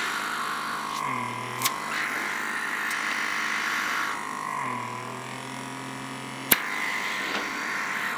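Lumae Skin microdermabrasion wand's small suction motor running with a steady hum. Its pitch dips twice, about a second in and again near five seconds, and each dip ends with a sharp click.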